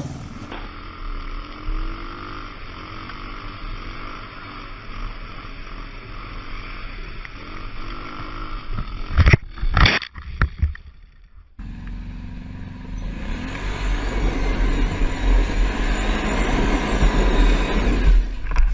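A vehicle engine running, broken by a few loud knocks and clatter about nine to ten seconds in. Then, from about twelve seconds, a sport motorcycle's engine revving hard through a tyre-smoking burnout, rising in pitch and getting louder.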